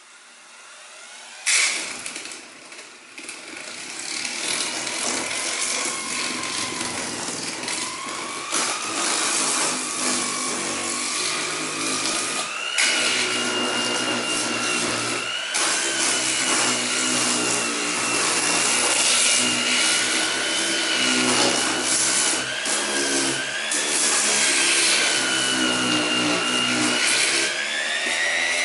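Electric random orbital sander set to slow speed, starting up about a second and a half in and sanding a plastic car bumper. Its motor whine climbs over the first several seconds, wavers up and down as the pad is pressed and moved over the surface, and rises again near the end, all over a steady gritty rubbing.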